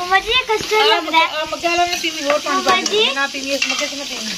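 Potato chips deep-frying in hot oil with a steady sizzle, under a high-pitched voice babbling without clear words. A wire whisk stirs kadhi batter in an aluminium pot.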